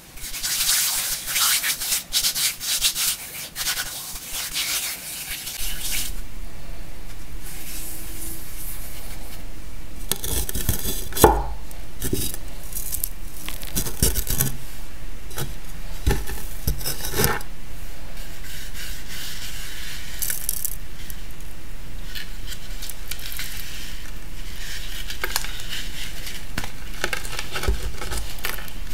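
Blocks of dyed gym chalk crumbled and rubbed by hand: many small crackles in the first few seconds, then steadier powdery rubbing broken by a few soft knocks, the loudest about eleven seconds in.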